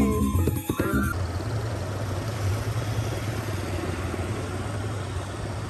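Music with singing for about a second, then an abrupt cut to a steady motor hum under a constant rushing noise, like a motorbike engine running while riding.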